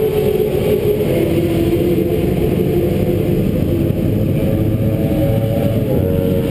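Suzuki GSX-R1000 inline-four sport-bike engine idling loudly and steadily while the bike sits stationary, its pitch sagging slightly about a second in and lifting again near the end.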